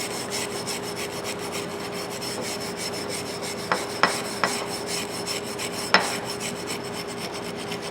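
Brass wire brush scrubbing the surface of an old rust-pitted pipe wrench in fast back-and-forth strokes, a steady scratchy rasping, with a few sharper clicks about halfway through.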